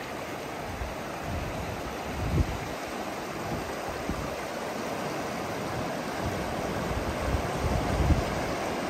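River water rushing steadily over rocks in shallow rapids, with a couple of brief low bumps, about two seconds in and near the end.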